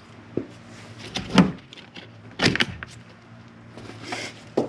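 Car door speaker being tested: a few short pops and knocks, the loudest about two and a half seconds in, over a steady low hum.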